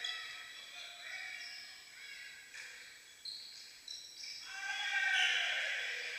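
Rubber-soled sports shoes squeaking on a sports hall floor as volleyball players move during a rally, with a few sharp knocks around the middle and a longer, louder squeal near the end.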